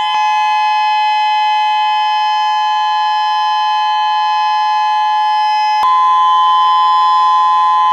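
Outdoor tornado warning siren sounding a steady tone, very loud. It holds one pitch, two close tones sounding together.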